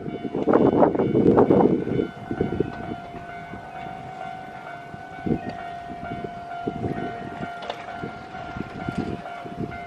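Japanese level-crossing warning alarm ringing with a steady high tone, over scattered low thumps. A loud rush of noise fills the first two seconds and then dies down.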